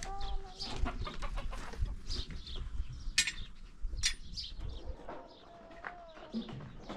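Domestic chickens clucking, with a longer call near the end, over scattered knocks and clicks; two sharp, bright clinks stand out about three and four seconds in.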